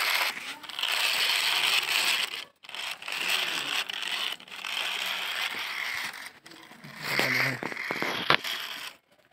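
Plastic wheels of a loaded toy dump truck rolling and scraping over gritty dirt, in four spurts of a second or two each with short pauses between, and a sharp click near the end.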